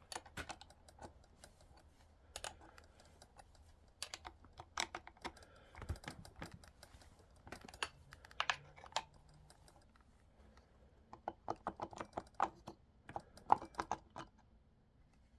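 Irregular light clicks and clinks of a tool and metal parts being handled on a Dolmar chainsaw as it is taken apart to fit a new chain, with a denser run of clicks near the end.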